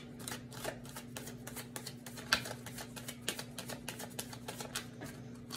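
A deck of tarot cards being shuffled by hand, the cards clicking and slapping against each other in quick, irregular taps.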